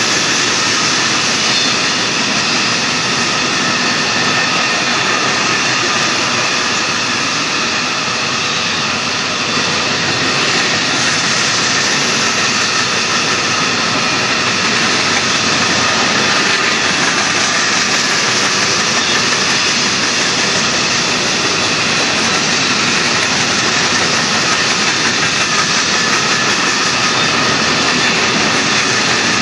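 Empty hopper cars of a freight train rolling past: a loud, steady roar of steel wheels on rail.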